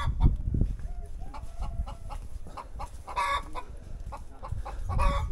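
Chickens clucking in short calls, with a louder call about three seconds in and another near the end, over a low rumble and a few dull thumps.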